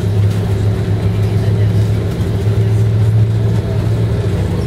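Bus engine and road noise heard from inside the passenger cabin: a loud, steady low drone.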